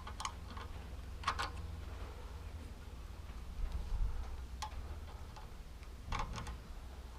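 Small, sparse metallic clicks and taps of hand tools working a hose clamp on a lawn tractor's fuel line, a few single clicks and quick pairs spaced a second or more apart, over a low steady hum.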